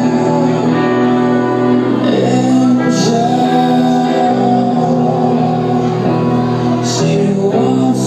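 Live rock band playing: a male singer over sustained electric guitar chords, with the full band loud and steady.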